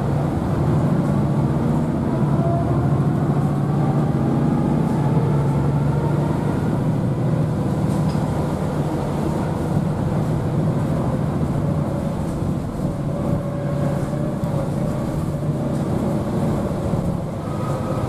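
Inside the upper deck of a MAN ND323F A95 double-decker bus under way: its MAN D2066 diesel engine and ZF EcoLife six-speed automatic gearbox drone steadily with road noise, and a whine rises in pitch over the first several seconds as the bus pulls away faster, then holds steadier.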